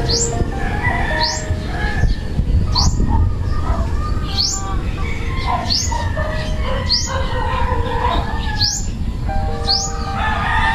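A small bird giving a short, high, upward-sweeping call over and over, about once a second, with background music playing under it.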